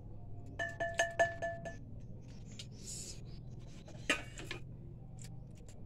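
A serving spoon tapping the rim of a rice pot about six times in quick succession, each tap ringing on. Softer scraping follows, then a single clink about four seconds in as the pot is handled.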